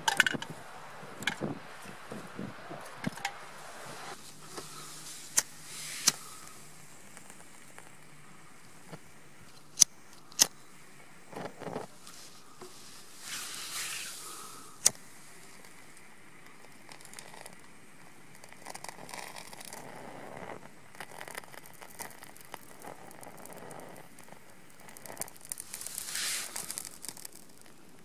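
Small wooden sticks knocking and clattering as they are dropped into an aluminium Swiss Army volcano stove, then a few sharp, separate lighter clicks as a firelighter block inside the stove is lit.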